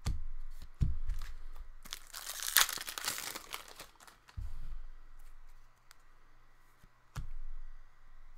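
A 2017-18 Upper Deck MVP hockey card pack wrapper being torn open and crinkled: one crackling rip lasting about two seconds, a couple of seconds in. A few dull bumps of the cards being handled come before and after it.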